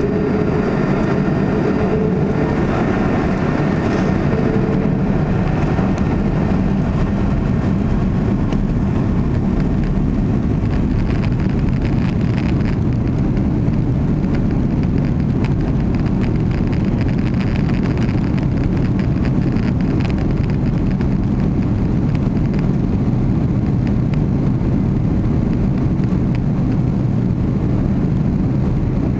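Jet airliner cabin noise by the wing: the engines run with a steady low hum and rumble as the plane rolls along on the ground, with a faint engine whine in the first few seconds.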